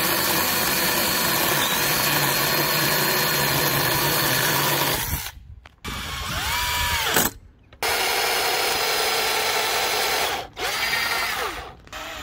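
Battery-powered chainsaw running steadily as it cuts the top of a wooden post for about five seconds. Then a cordless drill-driver drives long screws through a lath into the wood: it spins up and down in short bursts, with one longer steady run in between.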